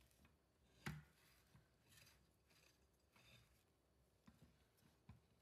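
Faint scraping and swishing of a silicone spatula around a glass mixing bowl of cake batter, with a light knock about a second in and a couple of small clicks near the end.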